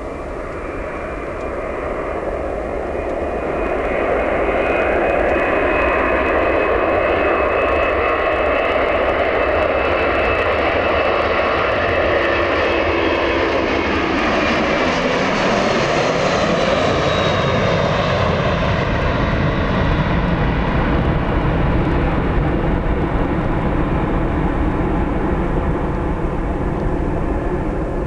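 Airbus A300-600R's two turbofan engines at takeoff power. The sound builds over the first few seconds; high whining tones slide down in pitch as the airliner lifts off and passes, about halfway through; a deep rumble then grows as it climbs away.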